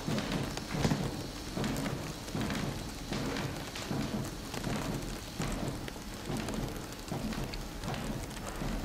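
Cooper's cable rig drawing a steel cable tight around the base of an oak barrel to close its staves, with a regular knocking about twice a second over a steady rumble.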